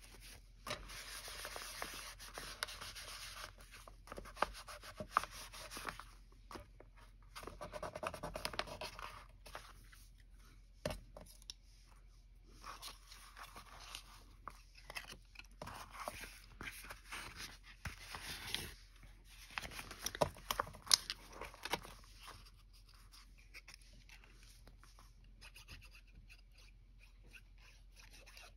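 Paper and card being handled at a craft table: sheets rustling and sliding against one another, with small taps and clicks. It goes quieter for the last few seconds.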